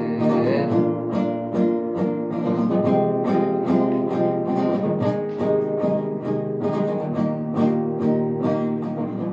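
Acoustic guitar strummed in a steady, even rhythm, chords ringing with no voice over them.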